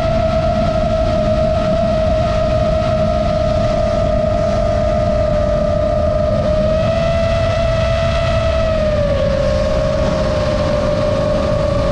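FPV drone's brushless motors whining in flight over a low rush of propeller wash and wind. The whine's pitch sinks slowly and steps down about nine seconds in.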